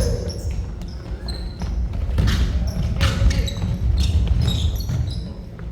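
Basketball game play: the ball bouncing on the court and many brief, high-pitched sneaker squeaks as players move.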